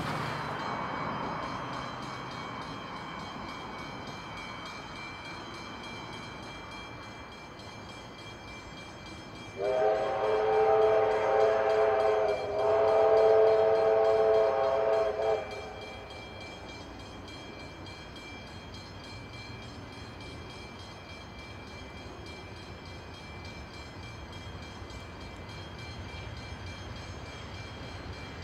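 A distant train sounding a chord of several pitches in two long blasts, about ten seconds in, each nearly three seconds long with a brief break between. Otherwise a low steady rumble from the approaching train, growing slightly near the end.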